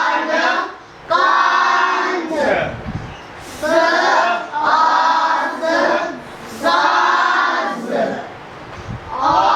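A group of children chanting phonics syllables in unison, several drawn-out sing-song phrases with short gaps between them.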